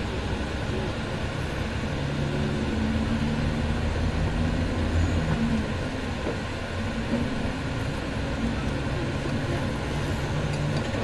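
Steady engine hum and road noise inside a moving bus as it drives along, a little louder for a few seconds in the middle.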